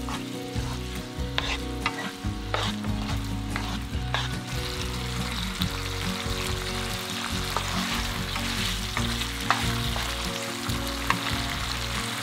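Mapo eggplant sauce with minced pork, thickened with potato-starch water, sizzling and bubbling in a frying pan as a wooden spatula stirs it. Scattered short clicks and scrapes come from the spatula against the pan.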